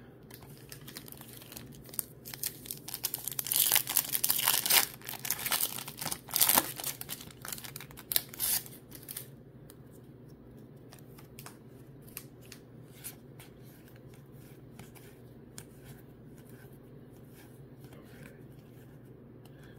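A trading-card pack wrapper being torn open and crinkled, a run of noisy rustling lasting about five seconds, followed by soft scattered clicks of cards being handled and flipped through.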